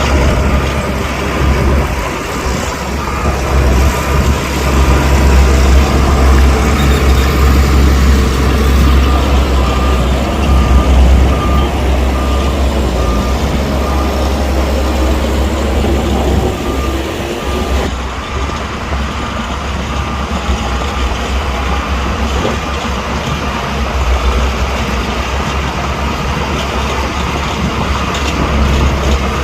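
Heavy diesel earthmoving machinery working, the deep engine sound of a bulldozer or dump truck running under load. A reversing alarm beeps steadily for several seconds midway, and the sound changes abruptly about two thirds of the way through.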